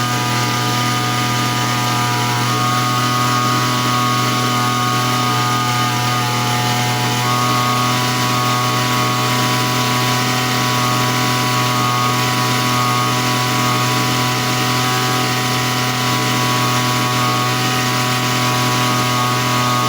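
Small grass-cutter engine running steadily at a constant speed during a post-repair test run, without stalling while warm.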